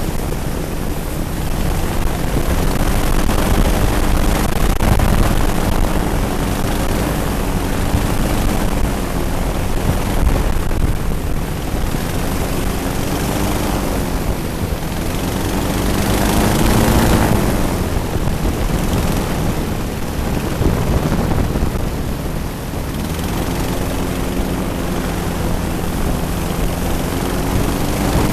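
Twin-engine airboat running under way: the engines and propellers hold a steady drone whose pitch wavers up and down. The pitch rises and falls once about two-thirds of the way through. A heavy low rumble of wind on the microphone runs underneath.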